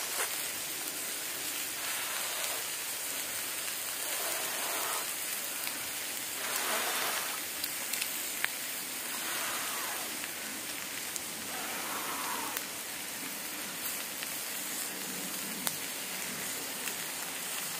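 Campfire crackling, with the steady hiss of food sizzling in a pan on the embers and scattered sharp pops from the burning wood.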